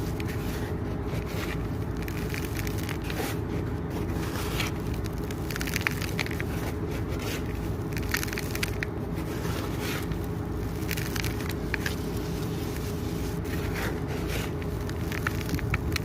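Dry, dusty cement and sand crumbles pouring and breaking up: a steady low rush with irregular crunchy crackles throughout.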